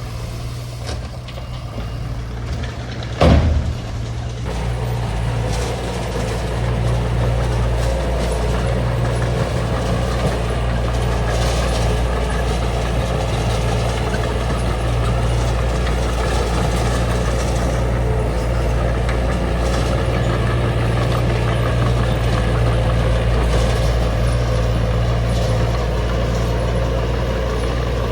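Small bulldozer's diesel engine running steadily while working, with one sharp bang about three seconds in; the engine grows louder about six seconds in and holds there under load.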